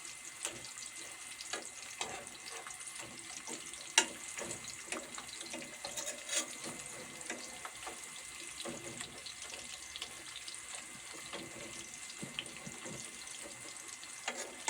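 Pieces of green plantain frying in hot oil, sizzling steadily with small crackles and pops. A spoon knocks sharply against the pot about four seconds in.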